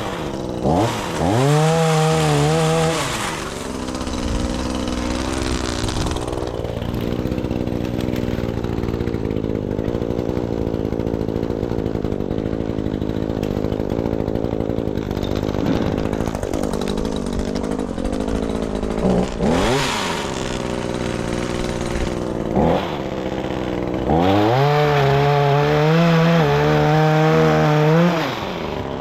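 Gas chainsaw revving up hard for about two seconds, then idling with a couple of brief blips of throttle, and revving again for about four seconds near the end before dropping back to idle, as branches are cut.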